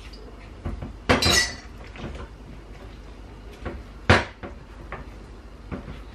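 Wooden spoon knocking and scraping against a ceramic mixing bowl while flour and liquid are stirred into a batter: a few separate knocks, the sharpest about four seconds in.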